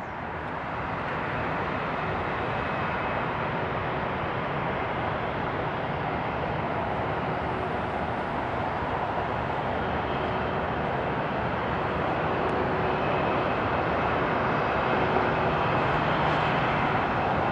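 Jet engines of a Boeing 737-900ER airliner running steadily at low power: a broad rushing noise with a faint steady whine, growing a little louder in the second half.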